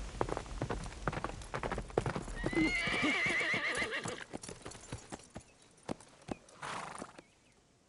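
Horse galloping, fast hoofbeats, with a wavering whinny about two to four seconds in. The hoofbeats thin out and die away about five seconds in.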